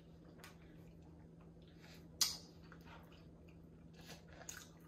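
Soft chewing and mouth sounds of a person eating, with a few sharp clicks, the loudest about two seconds in, over a steady low hum.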